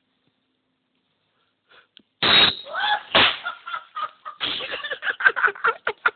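A bottle rocket goes off with a sudden loud burst about two seconds in. A man yells right after it, then several people break into hard, cackling laughter.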